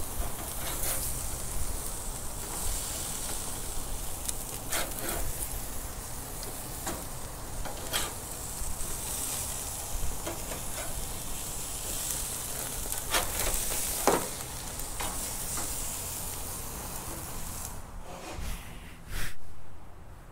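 King mackerel steaks sizzling on a gas grill set to high heat, with a metal spatula now and then clicking and scraping on the grates as the steaks are turned. Near the end the grill lid is shut and the sizzle falls away.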